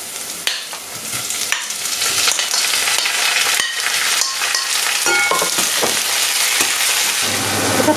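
Chopped tomatoes sizzling and frying in hot oil with onions, curry leaves and green chillies, stirred with a spoon. The sizzle grows louder about a second and a half in as the tomatoes go into the pot, with scrapes and clinks of the spoon against the pot.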